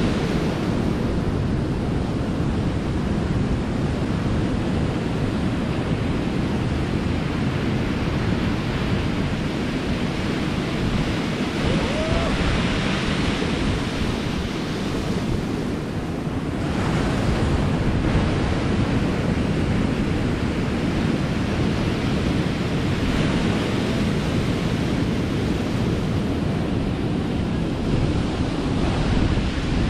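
Ocean surf breaking and washing over a rocky shore, a continuous roar with wind buffeting the microphone. One wave breaks louder about twelve seconds in.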